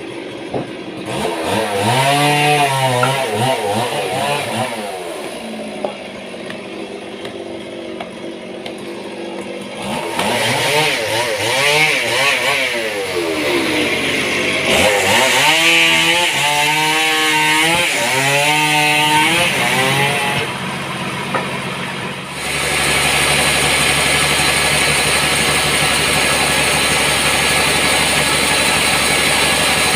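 A motor engine revving up and down in several sweeps, then running at a steady speed from about two-thirds of the way in.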